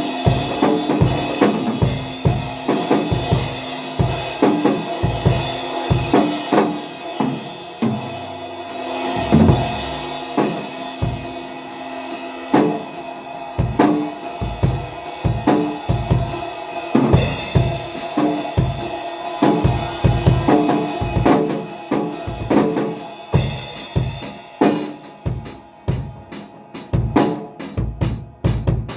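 A drum kit being played with bass drum, snare and cymbals, over sustained instrument tones, as in a band rehearsal. Near the end comes a run of quick, even strokes.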